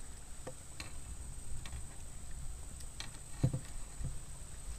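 Light, irregular clicks and knocks from fishing tackle being handled in a wooden boat. The loudest is a dull knock about three and a half seconds in, over a faint steady high-pitched tone.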